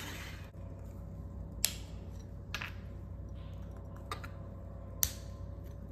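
A few sharp separate clicks as thin strips of scored glass are snapped off with glass-breaking pliers, trimming a diamond into a hexagon.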